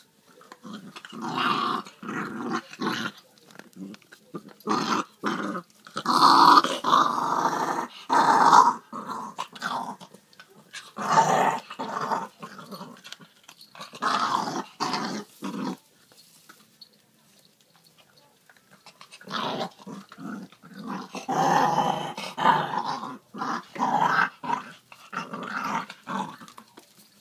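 A dog growling in repeated bouts, with a lull of a few seconds past the middle: growling over a pork-trotter bone while guarding it.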